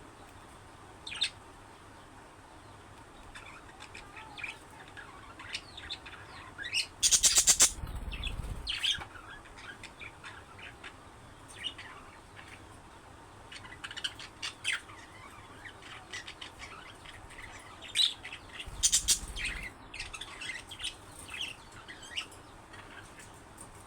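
Budgerigars chirping in short, scattered calls, with two loud bursts of wing flapping: one about seven seconds in and one near nineteen seconds.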